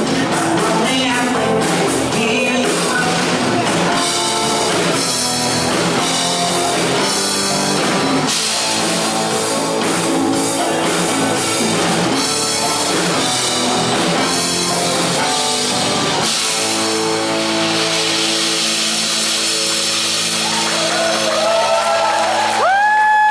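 Live band rehearsing a pop-rock song with a male lead vocal, drum kit and guitar. About two-thirds of the way through, the band settles onto a long held chord while the voice sings a final line, and everything cuts off together at the very end.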